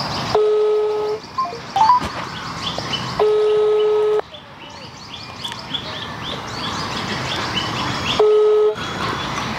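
Mobile phone on loudspeaker playing the ringback tone of an outgoing call: three beeps of one steady tone, the call not yet answered. Birds chirp steadily in the background.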